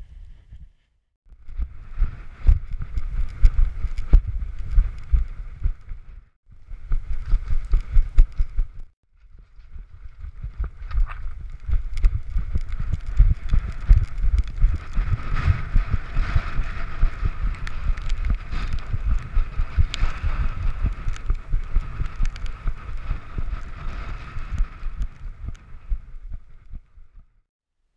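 Action camera on a running dog's harness jolting and rattling in its housing: a fast, uneven run of thumps with each stride. It cuts out briefly twice, after about six and nine seconds.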